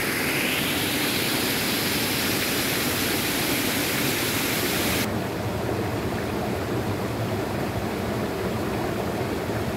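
Running water of a shallow stream, a steady hiss; about five seconds in it cuts abruptly to a duller, quieter water sound.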